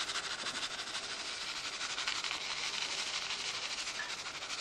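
A person blowing a steady stream of breath across a plate of dried light sand, a continuous breathy hiss. This is the gold-panning step that blows the light sand away from the gold.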